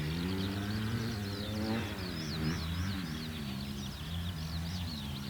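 Electric motor and propeller of an RC plane in flight, a low hum whose pitch climbs and then falls away about two seconds in before levelling off. Birds chirp throughout.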